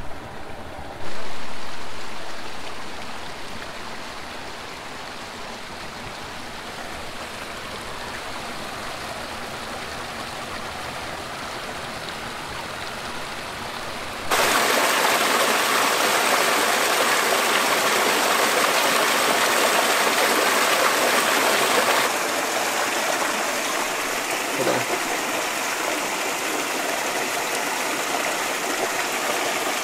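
Small mountain creek flowing, a steady rush of water. It jumps abruptly louder and fuller about halfway, then drops back somewhat later.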